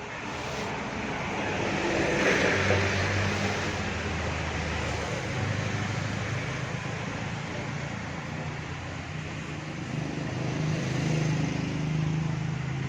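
Engine and road noise of a moving car, heard from inside the cabin, swelling about two seconds in and again near the end as the engine note shifts.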